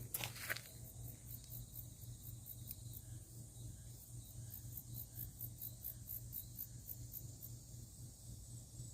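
Cicadas calling faintly: a very high pulsing chirp repeating a few times a second, over a low steady hum. A couple of sharp clicks come right at the start.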